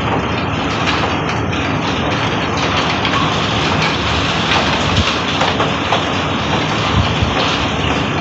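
Summer rainstorm: a steady, loud rush of rain and wind, with scattered faint crackles.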